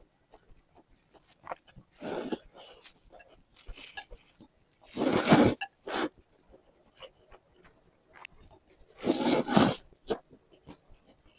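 Close-up eating sounds: chewing and mouth noises with small clicks, broken by a few louder noisy bursts about two, five and nine seconds in.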